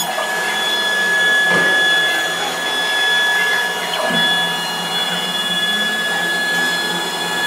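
Business Start CNC router milling plywood: a steady high spindle whine over the hiss of the cutter working the wood, with brief changes in the cut about one and a half and four seconds in.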